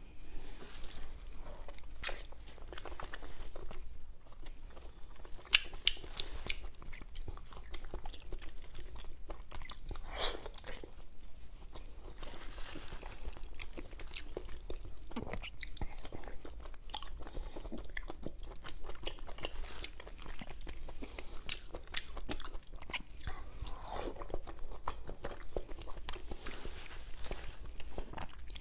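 A person chewing and biting into braised pork belly close to a clip-on microphone, with a steady run of wet mouth clicks and a few louder, sharper crunches.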